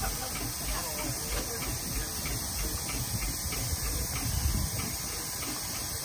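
Steady hiss of steam from a line of steam traction engines and steam road rollers standing under steam, with a low rumble underneath.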